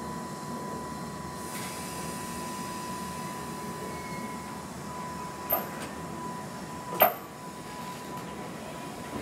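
Two-car electric commuter train at a station platform starting to pull away, over a steady high electric tone. Two short sharp sounds come about five and a half and seven seconds in, the second the louder.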